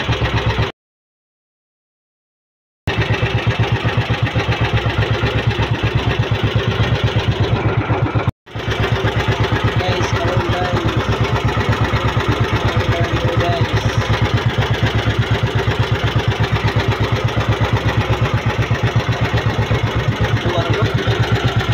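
A small fishing boat's engine running steadily with a rapid, even chugging. The sound cuts out completely for about two seconds near the start and again for a moment about eight seconds in.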